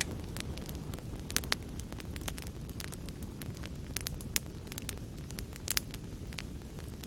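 Fire crackling in a fireplace: a steady low rumble of flames with frequent sharp pops and snaps, a few standing out louder, about one and a half, four and a half, and near six seconds in.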